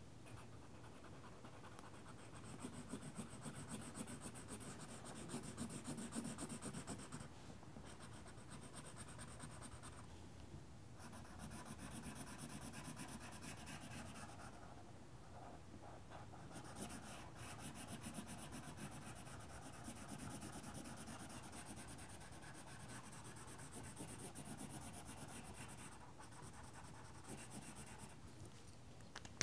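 Faint scratching of a felt-tip marker rubbing back and forth across paper as a blue band is coloured in. It comes in stretches of strokes broken by a few short pauses.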